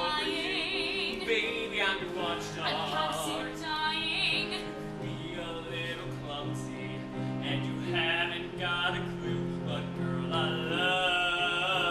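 Music: a man singing a musical-theatre song with vibrato over an instrumental accompaniment of held chords.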